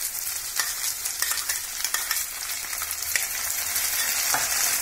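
Sliced onions sizzling steadily in hot oil in a frying pan, with a few short clicks and taps as tomato pieces are tipped in from a bowl with a spoon.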